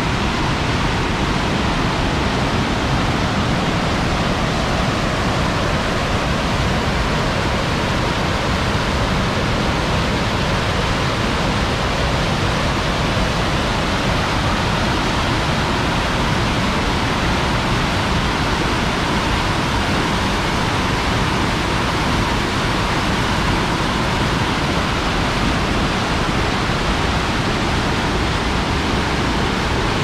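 Whitewater river rapids rushing steadily through a narrow rock gorge, a loud, unbroken wash of water.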